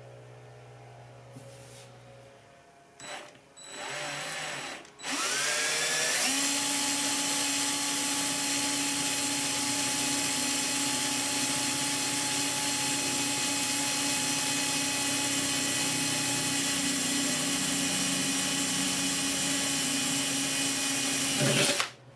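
Power drill boring a 3/32-inch pilot hole through the sheet metal of a 6-inch stovepipe. After a short burst, the motor whines up to speed and runs steadily for about sixteen seconds, then stops abruptly near the end. It is run with light pressure on the bit, so the cut takes a while.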